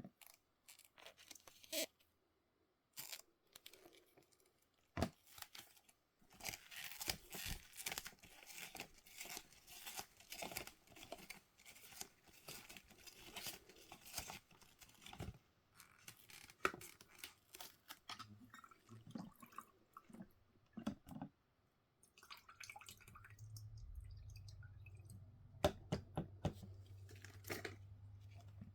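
Toy packaging being unwrapped and handled by hand: irregular faint tearing, crinkling and clicking, with a steady low hum setting in about three-quarters of the way through.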